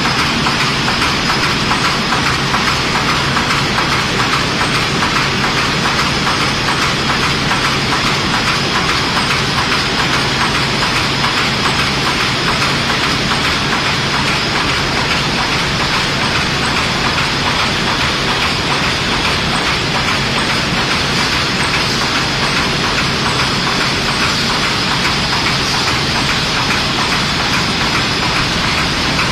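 A 1050 high-speed UV varnish coating machine running at production speed, feeding printed sheets through. It makes a loud, steady mechanical clatter over a constant hum.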